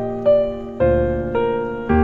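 Background music: a gentle melody played on piano or electric keyboard, a new note about every half second.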